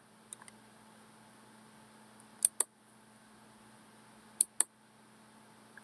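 Two computer mouse clicks about two seconds apart, each heard as a close pair of sharp ticks, picking the two corners of a selection box. A faint steady low hum lies underneath.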